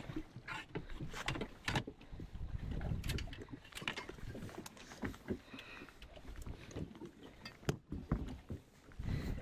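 Scattered sharp knocks and clicks from handling on a boat, over a low rumble of wind and water.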